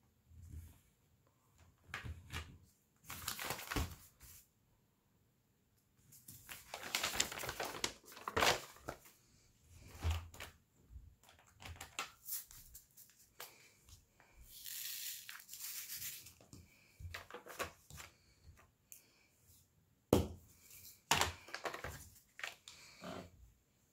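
Diamond painting supplies being handled: crinkling of plastic packaging and resin drills rattling in a plastic tray, with irregular light clicks and taps from the drill pen and drills. A longer hissing rattle comes about two-thirds of the way through, and a sharp click a little later is the loudest sound.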